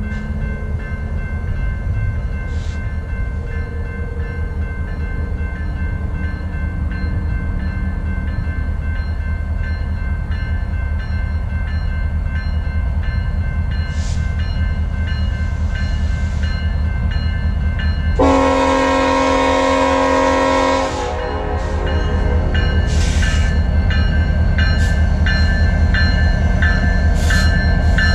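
Diesel freight locomotive approaching, its engines making a steady low rumble that grows louder. About two-thirds of the way in it sounds one long horn blast lasting over two seconds. Then its bell rings in short repeated strikes as it nears.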